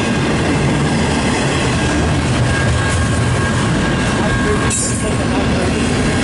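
Double-stack intermodal freight cars rolling past close by: a loud, steady rumble and rattle of steel wheels on rail, with a thin steady squeal from the wheels.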